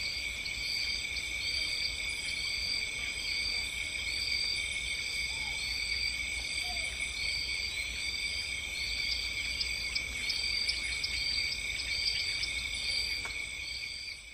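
Chorus of insects: several steady high trills, with one chirp repeating evenly a little more than once a second. It fades out at the end.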